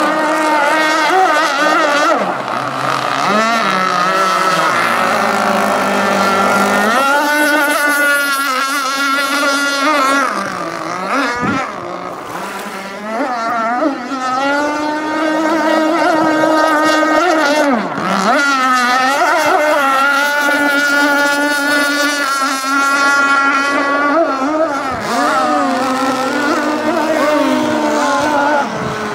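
Radio-controlled racing boat's motor running at high revs, its high-pitched note wavering and briefly dropping then climbing again several times as it laps at speed.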